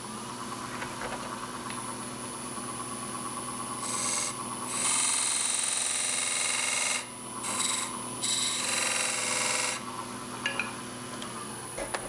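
Wood lathe running with a steady motor hum and a faint high whine, while a narrow hand-held turning chisel cuts at the spinning wooden box base in several hissing passes, starting about four seconds in and ending about ten seconds in. The cuts are light passes to fine-tune the fit of the base to the lid.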